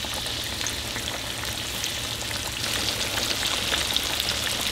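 Battered bone-in chicken deep-frying in hot peanut oil in a cast iron skillet: a steady sizzling hiss dotted with many small crackles and pops.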